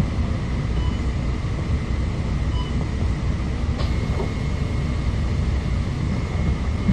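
Bus engine idling, heard inside the cabin as a steady low rumble. A couple of short faint electronic beeps sound in the first three seconds, and a thin steady whine starts about four seconds in.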